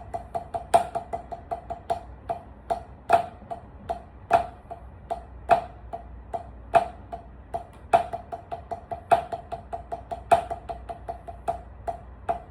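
Drumsticks playing a rudiment sequence of Swiss Army triplets, paradiddle-diddles and three tap strokes at a slow tempo, with a loud accented stroke about every 1.2 seconds and quieter taps between. Each stroke rings with a short, bright tone.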